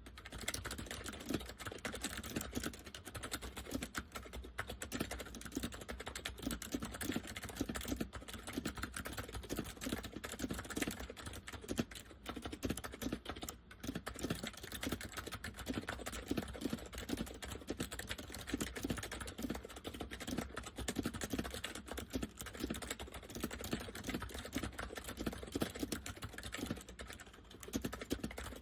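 Continuous typing on an Acer 6312K7 keyboard with Acer semi-mechanical switches in a KB101A-style chassis: a dense, steady stream of keystrokes with a deep chassis sound.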